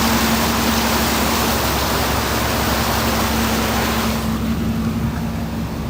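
A vehicle's engine hums steadily as it drives through floodwater, under a loud rush of water that falls away sharply about four seconds in.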